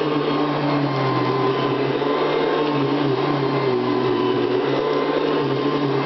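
Hoover Convertible upright vacuum cleaner running steadily: a motor hum whose pitch wavers slightly, under a loud airy rush.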